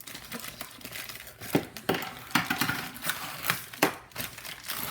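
Plastic packaging crinkling and rustling with sharp clicks and crackles as a Beyblade toy is unpacked by hand.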